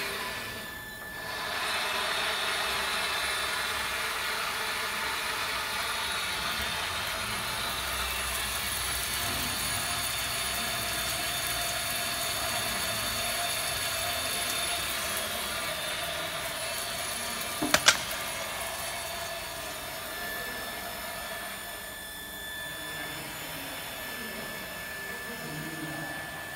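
Medium-speed wire EDM machine running a cut: a steady mechanical hum and hiss with faint high whining tones, from the travelling molybdenum wire drive and the coolant stream on the workpiece. A sharp double click sounds a little past halfway, and the sound grows softer for the last several seconds.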